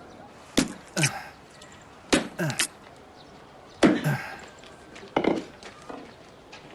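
Wooden mallet pounding rice-cake dough by hand: heavy thuds in pairs, about every one and a half seconds.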